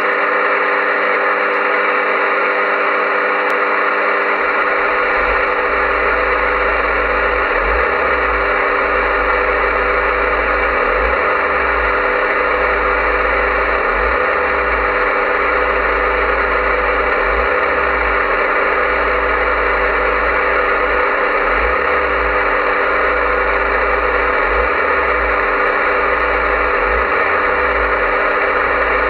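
CB radio receiver on channel 40 giving out loud, steady static hiss with several steady tones through it, its squelch open. A low rumble joins underneath about four seconds in.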